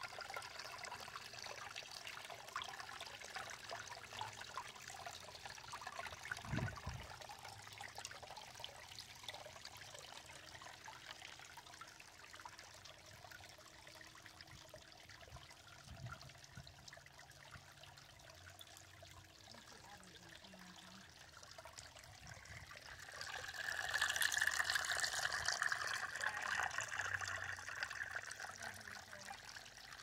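Water trickling and splashing down a tiered redwood garden fountain, over stacked redwood rounds and stones into a bubbling pool. It runs steadily, grows louder for a few seconds about three-quarters of the way through, and there is a brief low thump about six seconds in.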